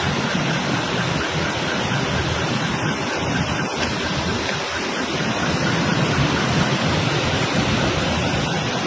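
Floodwater rushing steadily, a dense, even noise of fast-flowing water.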